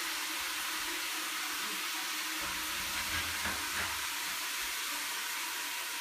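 Shower running, a steady hiss of falling water, with a bucket on the shower floor catching the cold water while it warms up. A low rumble sounds briefly in the middle.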